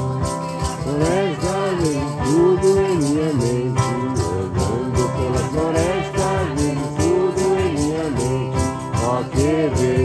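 Acoustic guitar and a shaken rattle keeping a steady beat, with voices coming in singing a song about a second in.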